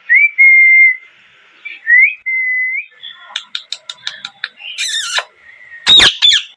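Indian ringneck parrot whistling two long notes, each rising and then holding steady, then a quick run of short chirps and two harsh screeches near the end.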